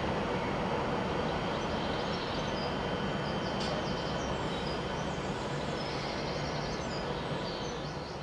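Steady rumble and hum of an Avanti West Coast Class 390 Pendolino electric train running in along the platform, with bird chirps over it from about midway; the sound slowly fades near the end.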